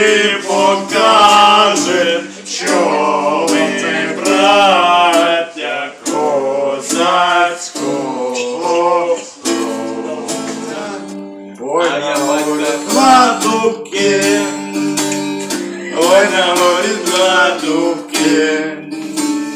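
Acoustic guitar strummed while men sing a Ukrainian song together. The singing breaks off for a couple of seconds about halfway through while the guitar carries on, then resumes.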